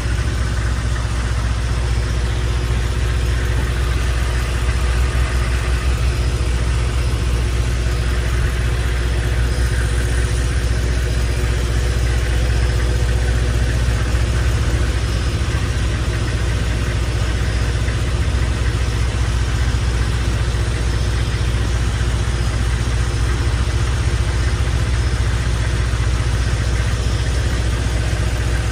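Ice cream truck's engine idling steadily as a low, even hum, kept running while the truck is parked to serve.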